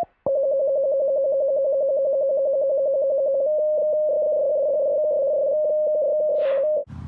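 A loud electronic tone with a fast buzzing flutter that starts suddenly with a click. From about halfway it switches back and forth between two close pitches, then cuts off abruptly near the end.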